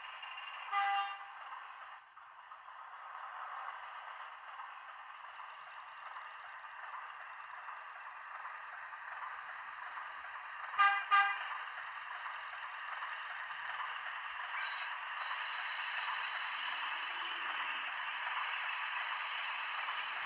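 Sound-fitted OO gauge class 03 diesel shunter model playing a diesel engine running sound through its onboard speaker from a DCC sound decoder. It gives one short horn toot about a second in and two quick toots near the middle, and the engine sound grows somewhat louder in the last few seconds.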